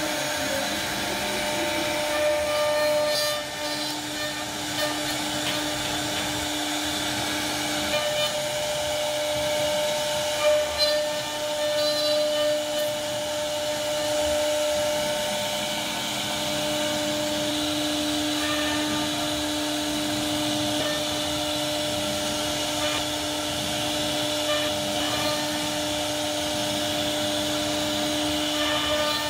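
CNC router spindle running steadily with a whine while its bit cuts a relief carving into a wooden panel, with the rushing noise of the cut under it.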